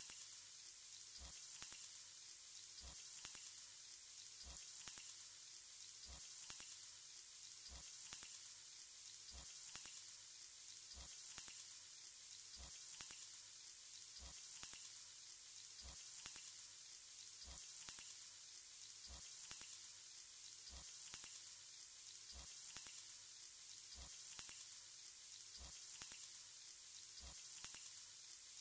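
Marinated chicken pieces sizzling as they fry in a non-stick pan: a faint, steady high hiss, with a light tick a little more than once a second.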